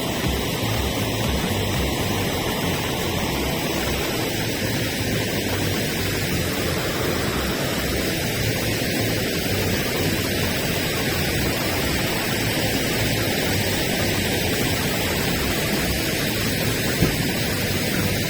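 Steady rushing noise of a waterfall, even and unbroken, with one short knock near the end.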